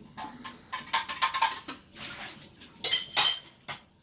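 Kitchen utensils clinking and knocking against dishes: a string of light taps, then two loud ringing clinks about three seconds in and one more near the end.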